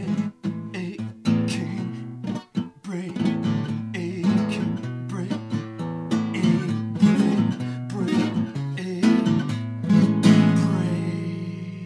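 Acoustic guitar played lap-style, laid flat with both hands sounding notes on the strings, in a busy instrumental passage of many quick plucked notes. A last chord, a little after ten seconds in, rings out and fades.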